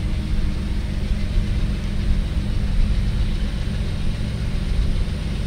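Diesel locomotive of an approaching CSX freight train running steadily, a low engine sound that holds level.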